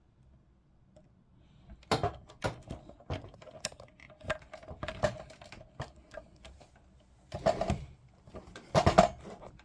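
Handling noise from a camera and its mount being repositioned close to the microphone: irregular clicks, knocks and rubbing, with a denser cluster of knocks near the end.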